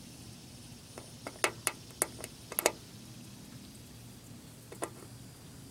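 Safety pin point tapping and picking at corrosion pinholes in an aluminum jon boat hull: a handful of sharp little ticks, most in a quick cluster a second or two in and one more near the end.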